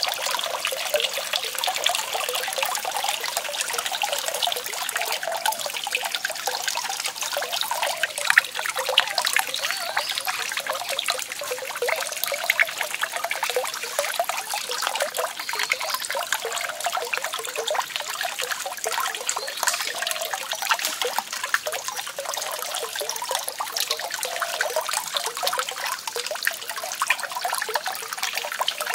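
Small paddle water wheels turning in a pond, splashing and trickling water steadily, with many fine quick clicks through it.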